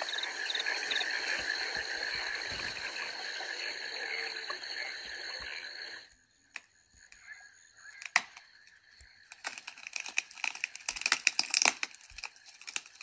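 Rainforest ambience with chirping calls over a steady high buzz, cutting off suddenly about six seconds in. It is followed by irregular sharp clicks and taps that come thicker toward the end.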